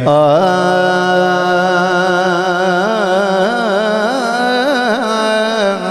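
A man's voice singing one long drawn-out note in Urdu devotional recitation (naat/manqabat), sung close into a handheld microphone. It holds steady at first, then wavers in ornamented turns from about three seconds in before settling again.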